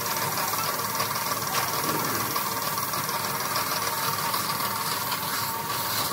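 Compressed-air paint spray gun with a suction-feed cup hissing steadily as it sprays paint.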